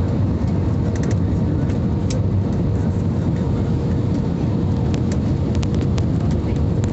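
Airliner cabin noise on approach with flaps extended: a steady deep roar of engines and airflow with a faint steady hum through it, and a few faint clicks.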